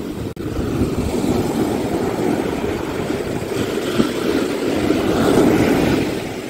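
Strong sea waves breaking and surf rushing up the sand at the water's edge, with wind on the microphone. A steady rushing noise that swells to its loudest about five seconds in, then eases off.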